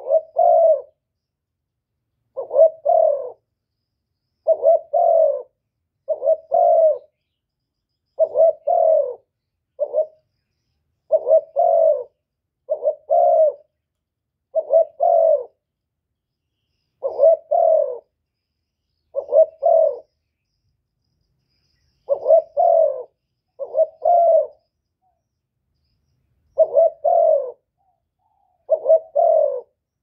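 Spotted dove (cu gáy) cooing, a run of short phrases of two or three coos each, repeated every couple of seconds with silent pauses between.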